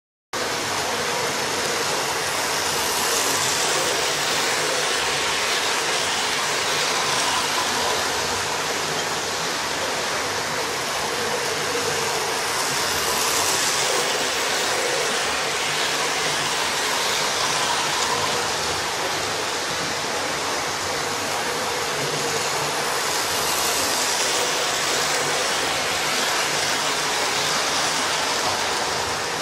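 Model Intercity 125 train running round a small layout: a steady whirr of its motor and wheels on the track, swelling louder and brighter about every ten seconds as it passes close on each lap.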